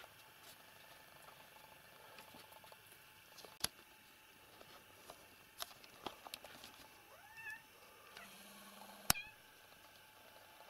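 A domestic cat meows once, a short call that rises and then falls, about seven seconds in. A few sharp clicks and knocks are scattered around it, the loudest just after nine seconds.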